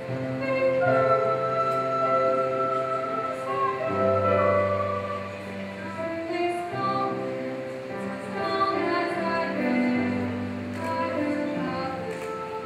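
Classical music with an operatic singing voice, sustained notes moving from one pitch to the next.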